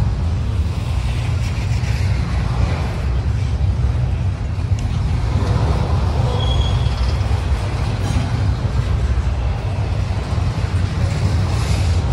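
A train running past: a steady low rumble, with a short high tone about six and a half seconds in.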